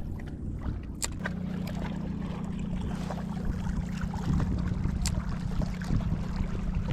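Low rumble of wind and water with a steady low hum that comes in about a second in, and two sharp clicks, about a second and five seconds in.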